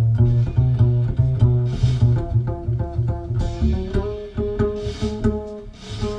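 Music with a plucked bass line and string notes, played through a pair of Energy Connoisseur C-7 loudspeakers; a note is held through the second half.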